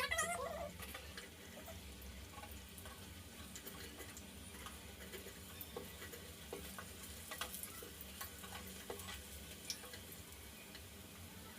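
Faint sizzle of batter-coated bajji frying in hot oil, with scattered small crackles and pops.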